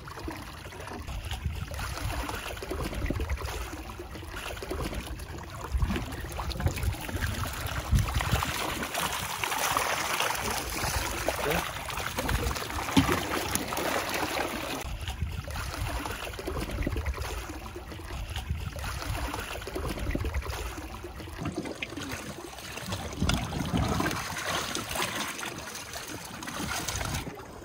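Sea water splashing and trickling as a hoop-style bait net is hauled up through the surface and drains, busiest about a third to half of the way through.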